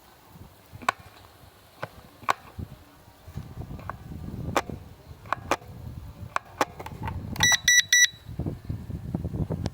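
Four short, high electronic beeps in quick succession about three-quarters of the way in. Under them are scattered sharp clicks and, from about a third of the way in, a low rumble of strong wind on the microphone.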